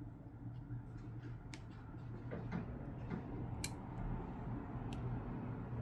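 A few sparse, sharp clicks and taps from small repair tools and phone parts being handled as an iPhone 12's battery connector is pressed back onto its board, over a low steady hum.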